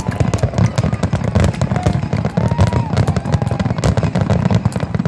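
Aerial fireworks finale: a dense, rapid barrage of bangs and crackles with a few short whistles mixed in.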